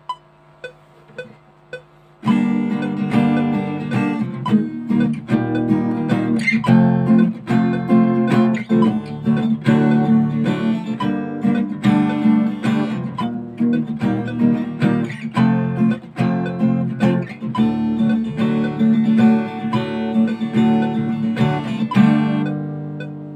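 A metronome clicks a count-in, about two clicks a second. Then a custom-built, unbranded acoustic guitar is played through a chord-based part, and its last chord near the end is left ringing and fading.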